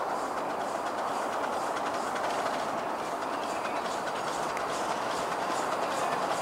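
A 7¼-inch gauge miniature steam train running on the track: a steady rolling rumble with regular light clicks from the wheels. It grows slightly louder toward the end as it approaches.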